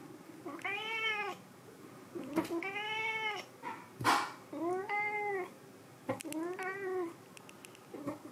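Cat meowing four times, each call rising then falling in pitch. Between the second and third meow comes a short rush of breathy noise.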